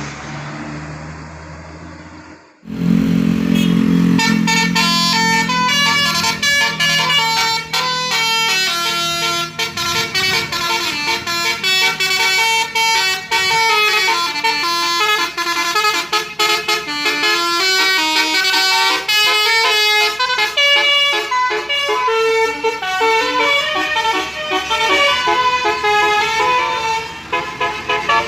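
Indonesian 'telolet' bus horn, a set of multi-tone air horns, playing a fast tune of quickly changing notes. It starts suddenly about two and a half seconds in, after a steady vehicle hum that cuts off.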